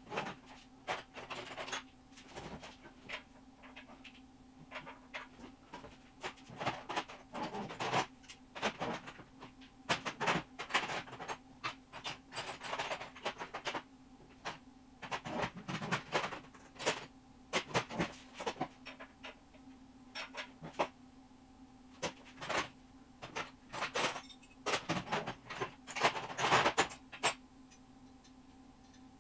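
Hand tools being handled, with irregular clicks, clinks and knocks, over a steady low electrical hum.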